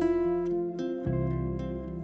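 Background music: plucked string notes over a low bass line, the bass changing note about a second in.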